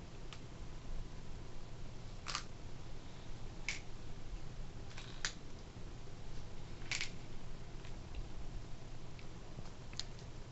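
Plastic Lego bricks clicking as they are picked up and set down by hand during sorting: a handful of separate, sharp clicks spaced a second or more apart, over a faint steady low hum.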